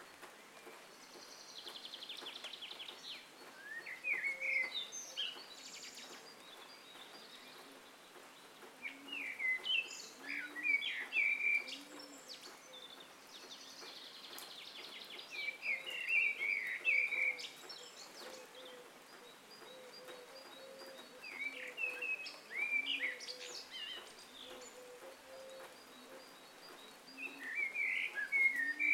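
Red-vented bulbul calling: short bursts of bright, chirpy notes about five times, each a few seconds apart, with a separate buzzy trill twice and soft low repeated notes in the background.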